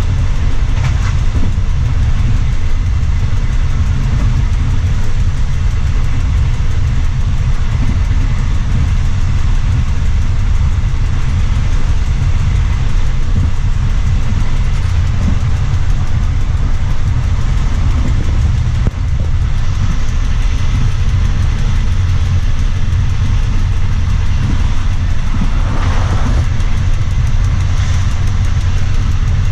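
Train running at speed, heard on board: a steady loud low rumble of the running gear and engine, with a short swell of rattling noise near the end.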